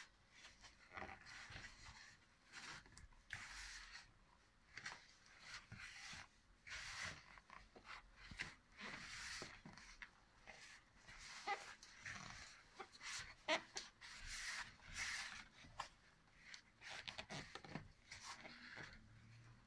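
A hand kneading wet, sticky yeast dough in a plastic bowl: faint squelching pushes and squeezes at an uneven pace of about one a second. The dough is still shaggy and clinging to the bowl, not yet ready.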